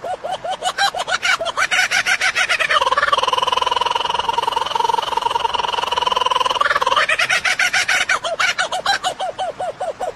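A bird's call: rapid repeated notes that quicken and merge into one long steady tone for about four seconds, then break back into rapid notes.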